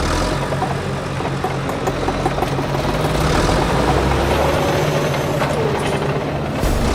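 Heavy construction-vehicle engine running steadily: a noisy rumble over a low hum.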